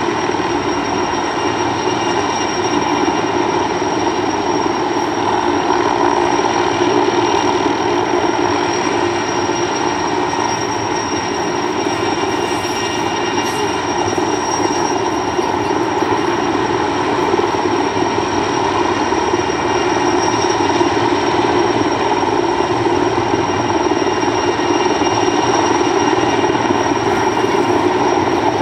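Sikorsky Skycrane heavy-lift helicopter hovering: a steady, loud drone of rotor and twin turbine engines, with a thin high whine over it.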